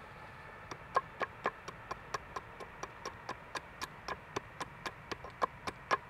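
A small axe striking wood in a rapid, even run of light chops, about four a second, starting just under a second in.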